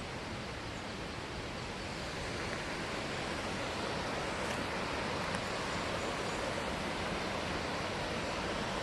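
Steady outdoor rushing noise with no distinct events, growing a little louder about two seconds in.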